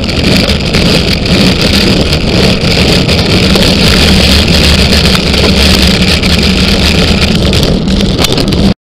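Loud, steady rushing wind and road noise of a fast downhill run on the Auris descent, with a low rumble underneath; it cuts off abruptly near the end.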